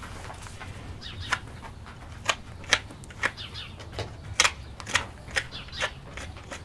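Hoof knife paring a horse's hoof sole: about ten short, sharp scraping cuts at uneven intervals.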